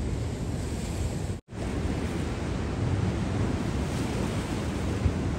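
Ocean surf washing on the beach, with wind noise on the microphone. The sound cuts out for a moment about one and a half seconds in.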